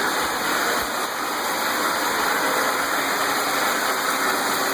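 1994 Honda Civic DX's four-cylinder engine idling steadily.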